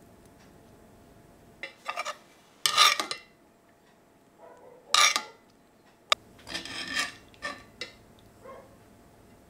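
Metal cooking utensils scraping and rubbing against cookware: several short rasping scrapes, the loudest about three and five seconds in, and a sharp click a little after six seconds.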